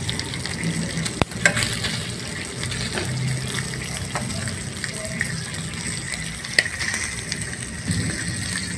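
Pork chops and beef tapa sizzling in an electric skillet with no oil, frying in their own juices. Metal tongs turning the meat give a few sharp clicks against the stainless pan, about a second and a half in and again near the end.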